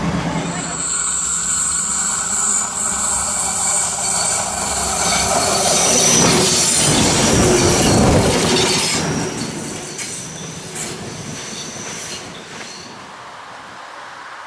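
VT 98 railbus running on the track with its wheels squealing on the rails. The sound grows to its loudest about halfway through, then fades away.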